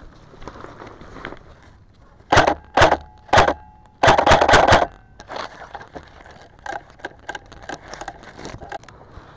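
Airsoft rifle firing in bursts: three short bursts about half a second apart, then a longer burst of just under a second, with a steady motor whine under each. Small crackles of leaves and twigs follow.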